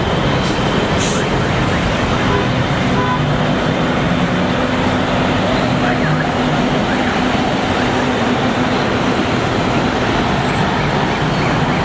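Steady road traffic noise from a slow queue of cars and buses, engines running with a low hum underneath.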